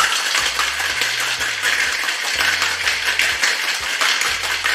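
Ice cubes rattling rapidly inside a metal cocktail shaker being shaken hard and continuously, starting abruptly.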